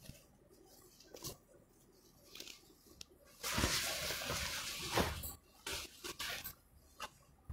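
A pure muga silk chador rustling as it is unfolded and shaken out close to the microphone: light handling rustles, then a loud stretch of rustling for about two seconds from halfway through, followed by a few shorter rustles.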